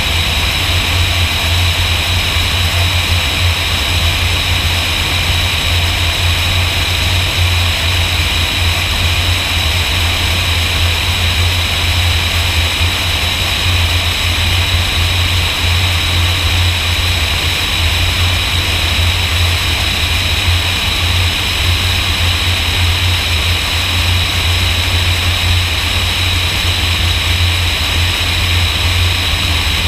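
Light high-wing airplane's engine and propeller running at a steady power setting on approach, a constant loud drone with a strong low hum and a steady higher hiss.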